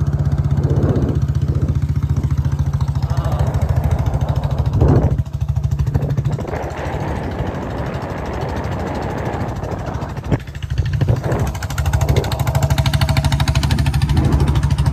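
Hero Splendor motorcycle's single-cylinder four-stroke engine running as the bike is ridden, heard from on board. Its note falls away for about five seconds in the middle and then returns; the rider says the petrol has run out.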